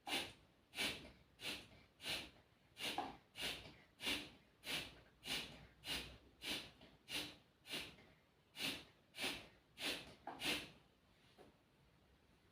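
Kapalbhati breathing: rapid, forceful puffs of breath out through the nose, a little under two a second, about seventeen in a row, stopping near the end. The puffs drive the remaining rinse water out of the nasal passages after jal neti.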